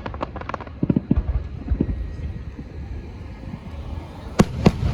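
Fireworks: a scatter of small pops and crackles in the first two seconds, then two sharp loud bangs in quick succession near the end.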